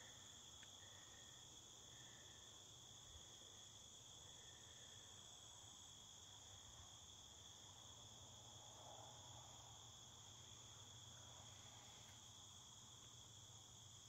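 Faint, steady insect chorus: a continuous high-pitched trilling at two pitches, typical of crickets in late-summer meadow grass.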